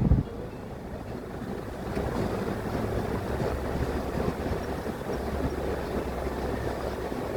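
Starter motor cranking a 1962 Porsche 356's air-cooled flat-four on a weak 6-volt battery, turning it over steadily without the engine catching. A loud burst at the very start cuts off sharply, and the cranking grows a little louder about two seconds in.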